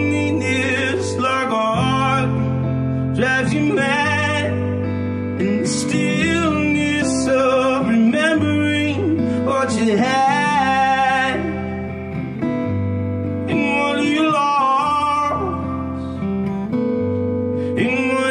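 A man singing a song to his own acoustic guitar accompaniment, with sung phrases over steadily strummed and held guitar chords.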